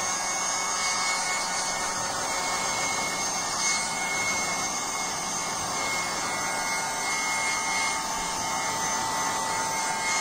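Handheld electric hot-air blower running steadily, a rush of air with a steady motor whine, drying the decoupage glue under a napkin layer.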